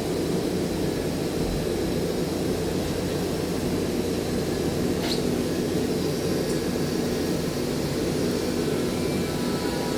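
Steady low mechanical roar of workshop machinery with a faint hum, unchanging throughout, and one faint short tick about five seconds in.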